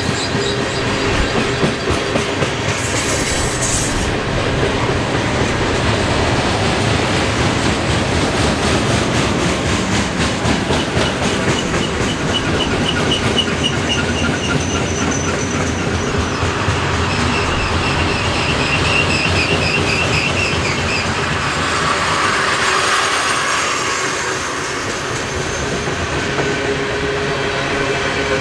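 Freight train cars rolling by, their wheels clattering steadily on the rails, with high-pitched wheel squeal coming and going through the middle.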